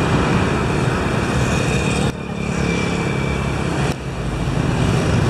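Steady road traffic noise, a continuous wash of passing vehicles, with two abrupt drops in level about two and four seconds in where the recording jumps.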